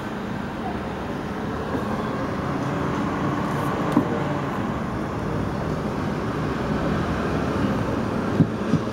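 Interior of a TW6000 tram running at speed: steady motor hum and wheel-on-rail rolling noise, with a sharp knock about four seconds in and two more near the end.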